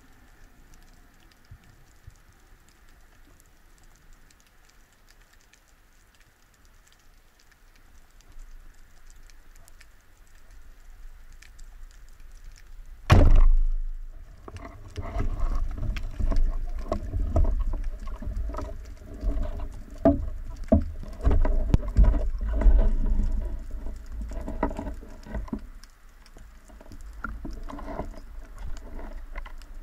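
Underwater: faint water noise, then about 13 seconds in a single sharp, loud crack of a speargun firing. A long run of irregular low thumps and clicks follows, from the speared white seabream and the gear, easing off near the end.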